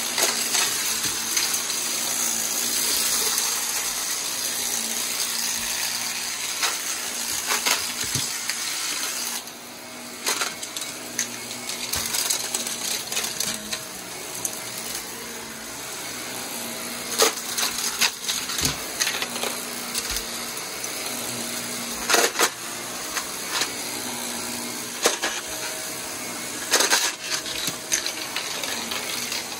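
Corded stick vacuum cleaner running over carpet, a steady motor and air rush, with sharp clicks and knocks every few seconds. The sound dips and turns duller about nine seconds in.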